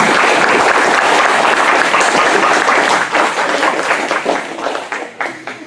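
Audience applauding: dense clapping that thins out and fades over the last couple of seconds.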